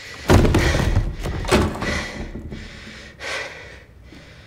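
Three sudden heavy impacts, thuds or slams: a loud one just after the start that rings on for about a second, a sharper one about a second and a half in, and a softer one a little after three seconds.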